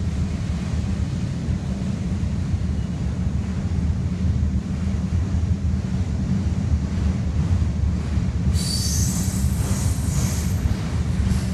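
Freight train cars rolling past with a steady low rumble. About eight and a half seconds in, a high-pitched wheel squeal sets in and lasts about two and a half seconds.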